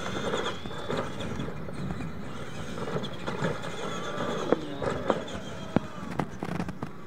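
Electric RC monster trucks running on a dirt track: a steady whine of motors and gears, with a few sharp clacks in the second half as the trucks bounce.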